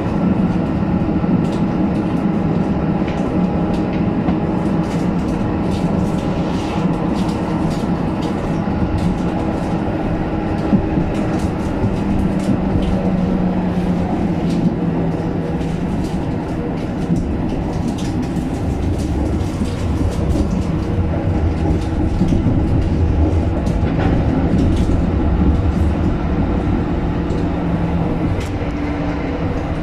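A 1977 Stadtbahnwagen B light-rail car running on street track, heard from inside at the front: the steady rumble of wheels on rail under a low hum that dips in pitch about twelve seconds in, with scattered light clicks.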